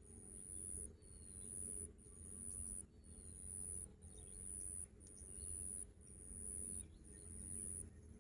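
An insect calling: a high, thin note repeated about once a second, each one swelling and then cutting off. Beneath it is a low steady hum from the engine-driven water pump filling the pond.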